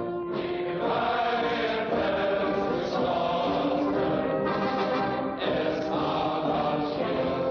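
A choir singing in slow, long-held notes, phrase by phrase, with brief pauses between phrases.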